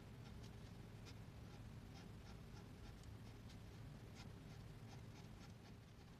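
Green pen scratching faintly on journal paper in short strokes, two or three a second, as small squares are drawn one after another. A low steady hum sits underneath.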